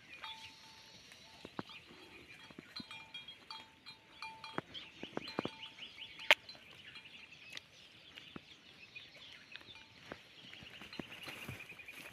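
Goats grazing: scattered sharp clicks and snaps, one much louder about six seconds in, over runs of rapid high chirping that come and go.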